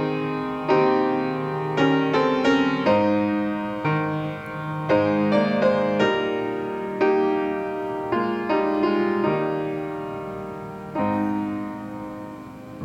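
Piano playing slow, gentle chords, each struck and left to ring and fade before the next. This is prelude music for silent prayer at the start of a worship service.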